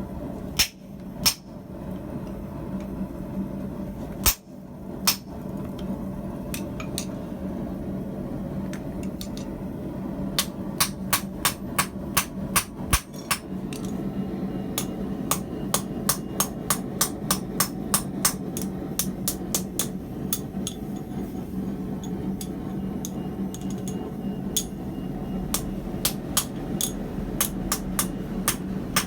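Hammer striking hot steel tubing on an anvil: a few scattered blows, then from about a third of the way in a long run of quick, even blows, about two or three a second. A steady hum runs underneath.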